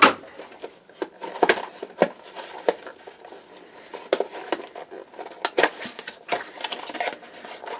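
Packaging being opened and handled by hand: a run of irregular clicks, taps and crinkles from the box and plastic around the new CPU.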